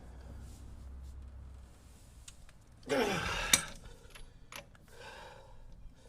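A short, strained exhale whose pitch falls, about three seconds in, ending in one sharp metallic click, among faint clicks of hand tools.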